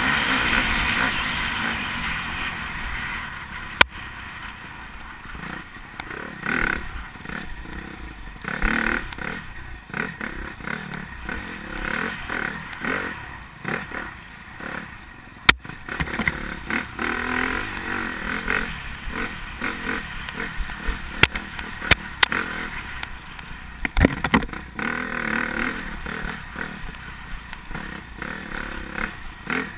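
Dirt bike engine revving up and down unevenly over rough ground, loudest at first. Sharp knocks and clatter come through a few times, around 4, 15, 21 and 24 seconds in.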